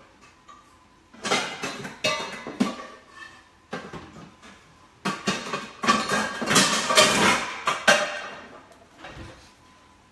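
Stainless steel bowls and pans clanking and clattering as they are rummaged through in a kitchen drawer, in several bouts, the longest and loudest in the second half.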